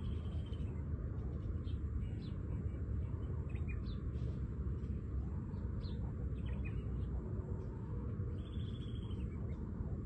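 Small birds chirping now and then, with two short trills, one at the start and one near the end, over a steady low rumble.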